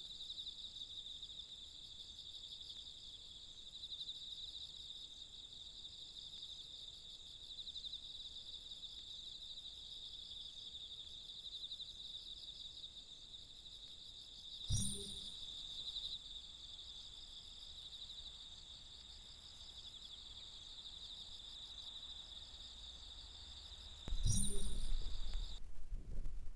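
Insects, crickets by their sound, trilling steadily at a high pitch, with a fine pulsing texture. Two short knocks break in, about halfway and near the end, where a low rumble starts and the trilling cuts off suddenly.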